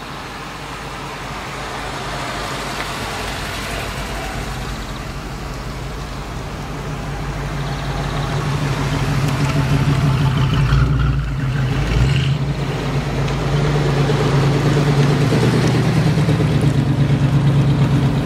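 First-generation Ford Mustang coupe's engine and exhaust running at low speed as it drives past, growing steadily louder as it approaches. It dips briefly about two-thirds of the way through, then holds a loud, steady note.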